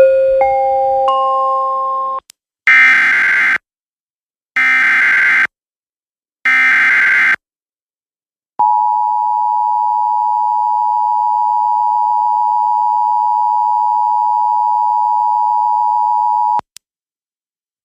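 Emergency Alert System tones. A three-note rising chime builds into a held chord. Then come three screechy digital SAME header bursts of about a second each, a second apart, and then the two-tone EAS attention signal, held steady for about eight seconds before it cuts off.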